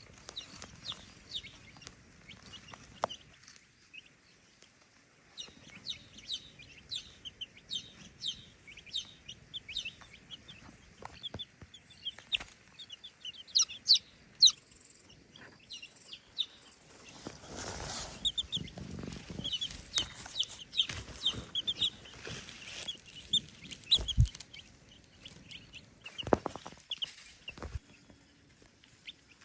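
Chickens calling with many short, high-pitched calls repeated throughout. In the second half there is a stretch of rustling and a sharp low thump.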